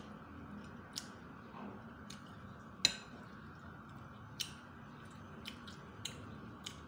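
Metal fork and spoon clinking lightly against each other and the plate while a piece of fried fish is picked up, about six short clicks, the loudest one just before three seconds in with a brief metallic ring. Soft wet mouth sounds of eating lie between the clinks.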